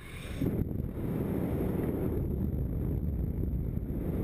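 Wind buffeting the microphone of a paraglider pilot's camera in flight, a low, steady rush that grows louder about half a second in.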